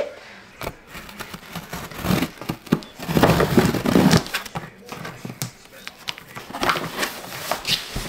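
Box cutter slitting the packing tape on a large cardboard box, with scraping and rustling of the cardboard; the loudest stretch is about two to four seconds in, and near the end a flap is pulled open.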